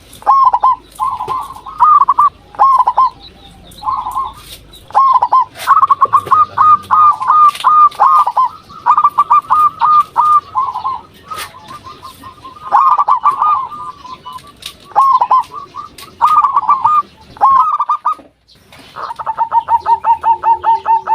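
Zebra doves (perkutut) cooing: phrases of quick repeated coo notes with short pauses between them, ending in a fast, even run of notes.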